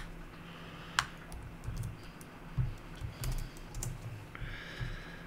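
Computer keyboard being typed on: a string of separate key clicks as a short command is entered, over a faint steady low hum.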